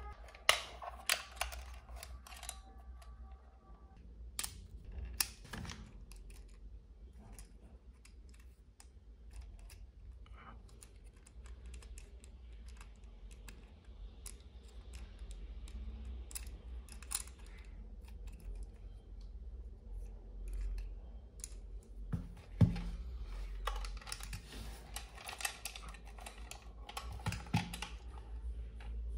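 Irregular clicks, taps and rattles of small plastic parts as a Hot Wheels RC toy car and its plastic controller are handled, turned over and a charging cable is plugged in, over a steady low hum. Tones of background music fade out in the first few seconds.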